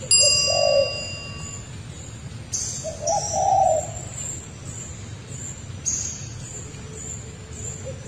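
Forest bird calls: high chirps every second or two, and short, low cooing calls three times. A bright chime rings out at the start and fades over about a second and a half.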